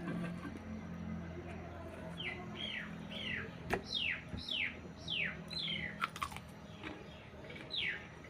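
A bird calling: a series of quick, downward-sliding whistled notes, roughly two a second, starting about two seconds in, over a low steady hum, with a couple of sharp clicks.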